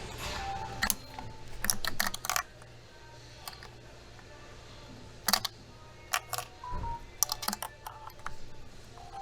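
Sharp plastic clicks and snaps from hands working on a car's engine wiring harness, pulling off tape and handling the connectors, in irregular clusters. Background music plays under it.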